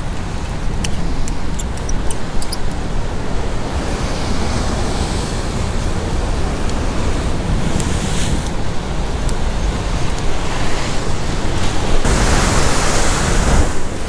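Ocean swell surging and washing against the rocks below, with wind buffeting the microphone; a louder rush of surf comes about twelve seconds in.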